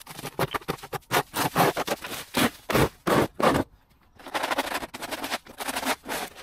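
Stiff yard broom sweeping leaf litter, twigs and soil across a tarmac footpath: quick repeated scratchy strokes, a short pause a little past halfway, then another run of sweeping.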